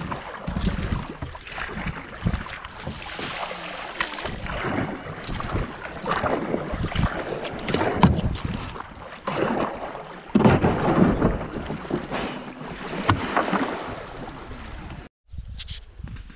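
Sea kayak paddle strokes, the blades splashing and pulling through the water beside the hull, with wind on the microphone. The water sound swells with each stroke every second or two, then cuts off suddenly about a second before the end, giving way to a quieter outdoor background.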